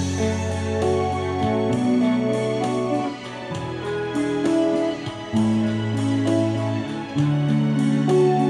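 Instrumental music with guitar and keyboard over a bass line and a steady light beat.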